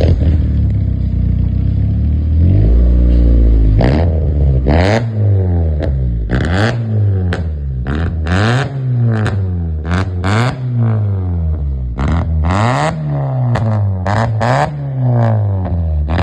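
2002 Honda Accord engine and exhaust through a muffler-shop exhaust system. It runs steadily for a few seconds, then is revved in a series of quick throttle blips, its pitch rising and falling about once a second.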